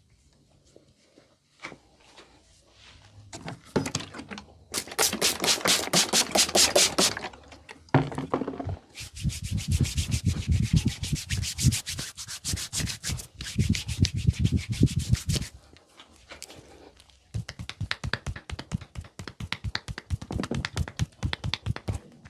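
Hands rubbing vigorously in a massage, fast rhythmic friction strokes of about six to eight a second. They come in three long spells with short pauses between.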